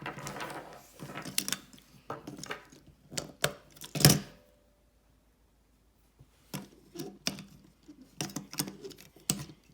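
Small clicks and taps of batteries being fitted into a plastic toy train's battery compartment, with one louder knock about four seconds in, a short pause, then more clicking.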